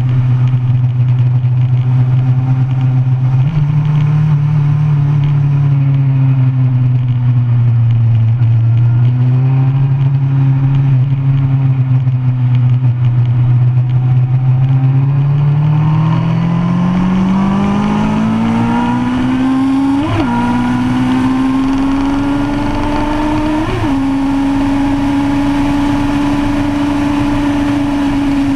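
2005 Kawasaki ZX-10R's inline-four engine with an aftermarket DanMoto racing exhaust, heard from on the bike at speed. The note holds fairly steady through the corners for the first half. From just past halfway it climbs steadily as the bike accelerates, with two brief breaks in the note a few seconds apart, and stays high near the end.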